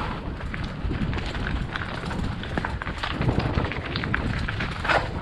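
Mountain bike descending a dirt trail: a continuous rough rolling noise of tyres over loose ground, broken by many small knocks and rattles from the bike.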